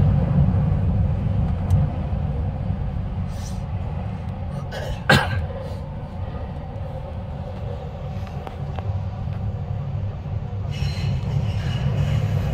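Steady low rumble of a driverless Incheon Subway Line 2 train running through a tunnel, heard from inside the car. One short sharp crack cuts through about five seconds in; the rumble eases in the middle and grows louder again near the end.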